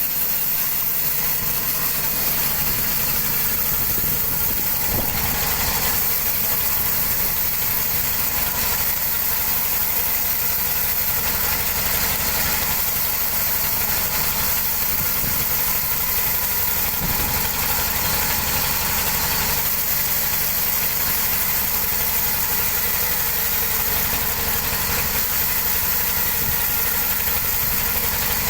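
Big sawmill running steadily: a constant machine drone with a strong high hiss that holds an even level throughout.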